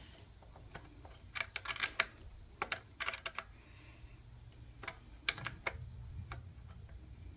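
Ratchet wrench clicking in several short bursts of rapid clicks, as the socket is swung back and forth on a bolt.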